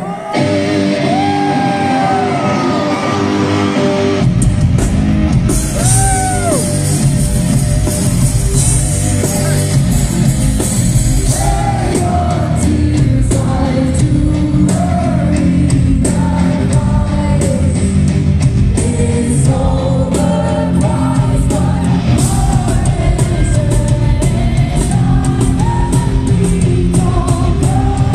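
Live rock music heard from the audience in a large hall: electric guitar and a woman's lead vocal, joined by bass and drums about four seconds in.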